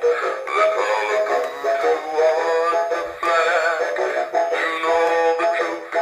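Sound Tactics Rock Along singing golfer animatronic toy playing its song: a recorded male vocal over backing music, thin and tinny with no bass.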